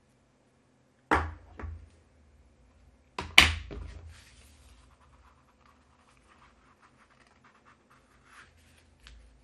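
Two sharp knocks on a tabletop, the second about two seconds after the first and louder, as cardstock and craft pieces are handled. They are followed by soft scratchy rustling and sliding of paper card on a craft mat.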